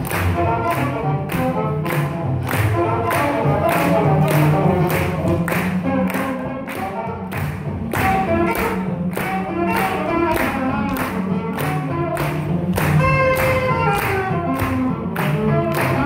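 Swing jazz played by a small band, with a steady driving beat under pitched melodic lines.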